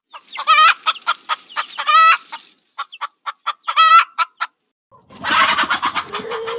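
Domestic hen clucking: a string of short clucks mixed with a few longer, wavering cackling calls, then a rougher, noisier squawk about five seconds in.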